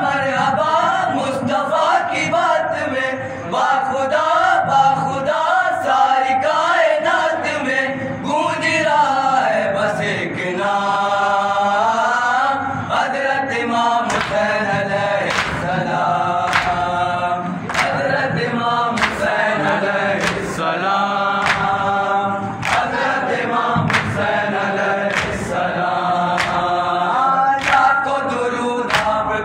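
Group of young men chanting a Shia noha, a lament for Imam Hussain, in unison with no instruments. From about halfway, sharp strokes about once a second keep the beat: hands striking chests in matam.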